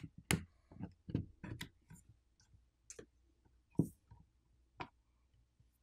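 Scattered sharp clicks and taps, about a dozen, of a plastic pry tool prying an aluminium phone midplate loose from its frame. The loudest come near the start and about four seconds in.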